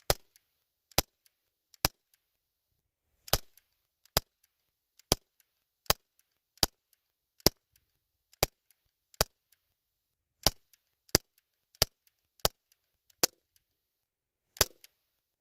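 BB gun firing a string of about seventeen single shots, each a short sharp crack, roughly one every three-quarters of a second to a second with a few longer pauses.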